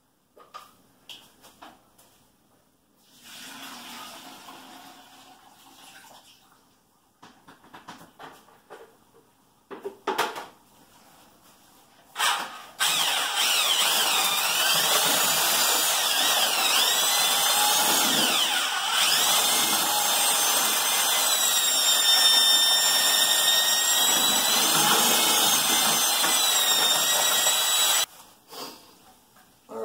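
Electric drill with a paddle mixer stirring a stiff batch of Quikrete concrete mix in a bucket. It starts about thirteen seconds in and runs steadily for about fifteen seconds, its motor whine wavering in pitch under the load, then stops abruptly. Before it there are scattered faint knocks and scrapes.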